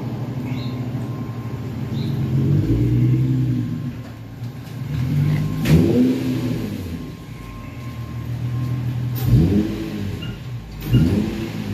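Infiniti G35's V6 engine idling and revved in four blips, each rising and falling in pitch, the first one longer.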